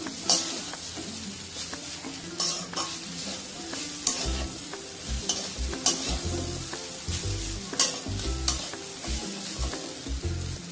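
A metal spatula stirring and scraping soaked flattened rice (pohe) and vegetables around a metal kadhai, with sharp irregular scrapes and clicks against the pan over the sizzle of the food on the heat. Dull low thumps join in from about four seconds in.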